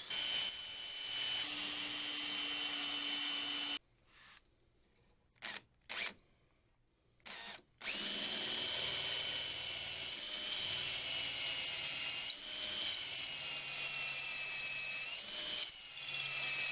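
Small electric power tool with a high motor whine working a wooden handle. It runs, stops for a few seconds with a few short blips of the trigger, then runs again, its pitch dipping and recovering as it takes load.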